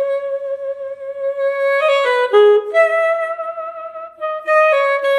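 Sampled saxophone from the VHorns virtual instrument, played from an EWI wind controller: a slow melodic phrase of long held notes, each with an old-style wavering vibrato, and a few quicker note changes in the middle and near the end.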